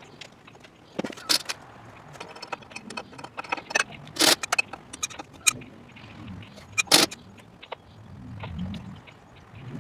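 Hand tools and metal parts clinking and clanking as work goes on at the hydraulic pump of a skid steer, with sharp metallic clanks about a second in, around four seconds and around seven seconds between lighter clicks and rustling.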